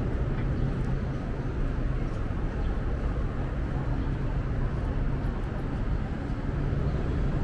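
Steady city street noise: a continuous low traffic rumble with general urban bustle.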